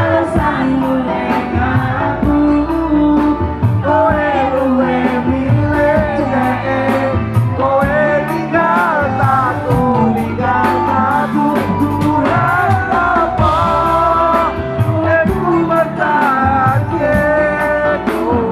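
Live band music played loud through a PA: sung vocals over electric guitar, keyboard and drums keeping a steady beat.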